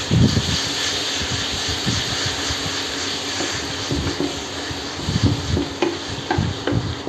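Chopped tomatoes sizzling in hot oil and spice masala in a frying pan, with a steady hiss. A wooden spatula stirs and scrapes against the pan, its knocks coming more often in the second half.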